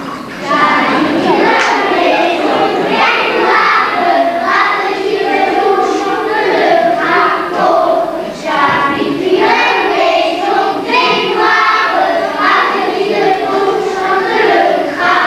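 A group of young children singing a song together, phrase after phrase, with a brief break about eight and a half seconds in.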